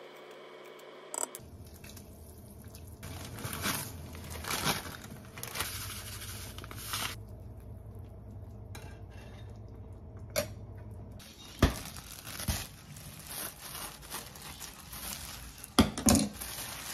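A ladle stirring soup in a stainless-steel saucepan, scraping and knocking against the metal, with a few sharp clinks. Near the end, plastic wrap crinkles and is cut with kitchen scissors.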